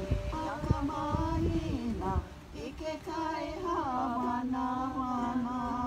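Singing with ukulele and guitar accompaniment for a hula, the voice holding one long note through the last couple of seconds.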